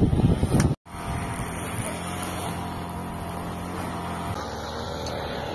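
Wind buffeting the microphone, cut off abruptly under a second in, then a steady engine hum that changes slightly near the end.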